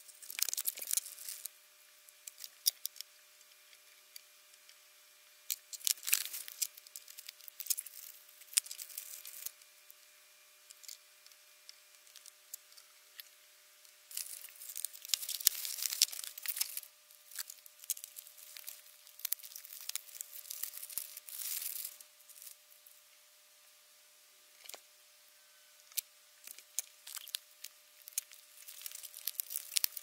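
Bubble wrap and plastic packaging crinkling and tearing in irregular bursts as graphics cards are unwrapped by hand, with short clicks and knocks in between as the cards are handled and fitted onto the rig frame.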